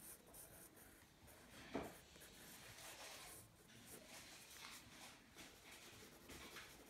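Graphite pencil sketching on sketchbook paper: faint, quick scratchy strokes, with a soft knock about two seconds in.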